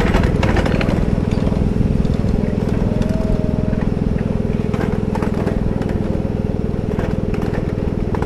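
Ride-on miniature train running along its small-gauge track, heard from a passenger car: a steady low rumble and rattle, with scattered clicks from the wheels on the rails.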